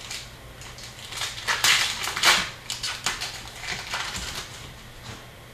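Trading cards and their foil packs being handled: irregular scratchy crinkling and rustling, loudest about two seconds in.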